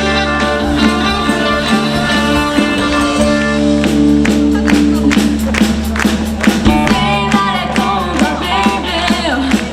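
Live band music: held chords with guitar, drums coming in about four seconds in, and a singing voice entering near the end.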